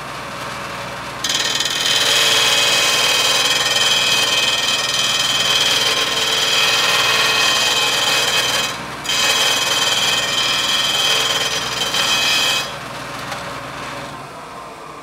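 A carbon-steel lathe gouge being ground on the spinning abrasive sanding disc of a Shopsmith: a loud, steady scraping grind over the motor's hum. The grinding starts about a second in, breaks off briefly around nine seconds, and stops near thirteen seconds, leaving the machine running more quietly and fading toward the end.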